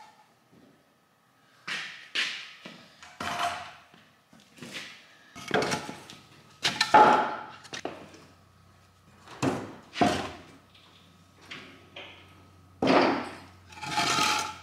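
A man's heavy, effortful breaths and short grunts, about one a second, from the strain of hand-lifting and lowering a heavy steel engine crane.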